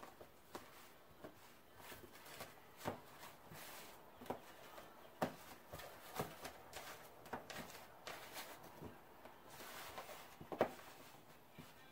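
Eggplant slices being turned over and set down by hand on an aluminium baking sheet: scattered light taps and clicks at irregular intervals, the loudest about ten and a half seconds in.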